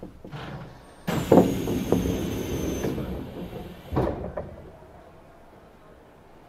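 Sliding passenger doors of a Tokyo Metro 16000-series train working at a station stop: a sudden rushing hiss of about three seconds, ending in a clunk as the doors meet.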